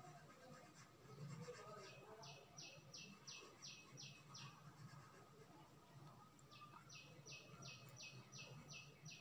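Faint bird calls: two runs of short, evenly spaced high chirps, about three a second, each run lasting a few seconds, over a steady low hum.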